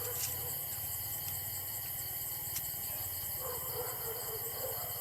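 Insects chirping steadily in a high, finely pulsing drone, with a couple of faint clicks.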